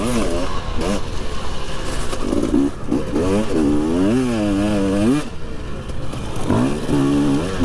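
Husqvarna motocross bike's two-stroke engine being ridden hard, revving up and down as the throttle opens and closes. The pitch climbs and falls several times, with a brief dip about five seconds in.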